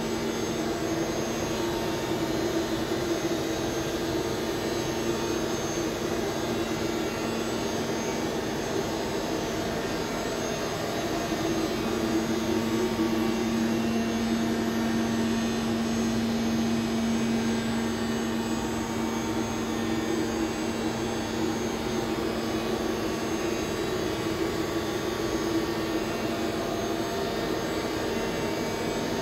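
Boehringer DUS 630 ti cycle lathe running with a steady whirring hum, growing a little louder midway and then easing back.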